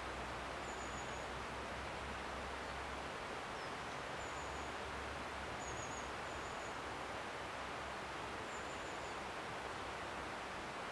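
Steady, even woodland hiss of rustling leaves, with a small bird giving short, very high, thin calls about half a dozen times, every second or two.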